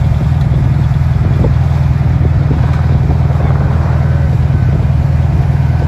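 A trophy truck's big engine idling steadily, with a low, even sound that does not change.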